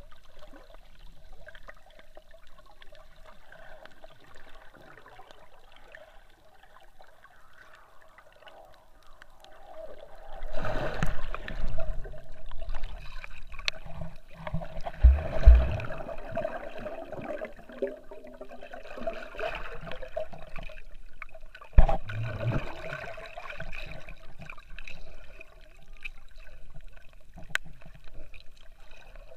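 Muffled underwater water noise picked up by a submerged action camera, with gurgling and a faint steady hum underneath. About ten seconds in it grows louder for several seconds with swishing and low thumps, and a single sharp thump comes a little past twenty seconds.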